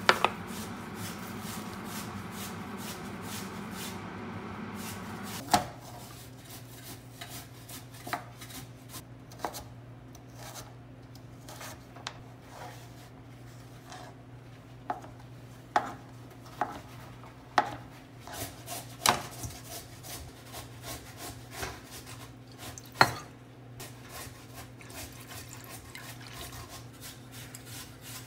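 Knife cutting carrots on a plastic cutting board: separate, uneven knocks every second or so, over a steady low hum.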